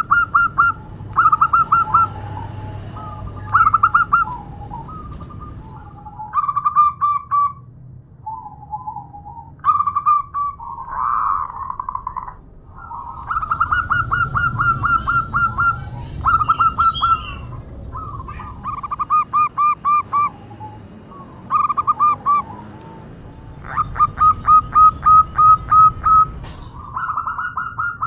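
Female zebra dove (perkutut) calling to a male: repeated short bursts of rapid staccato cooing notes, coming every second or few seconds. The longest and loudest run of evenly spaced notes comes near the end.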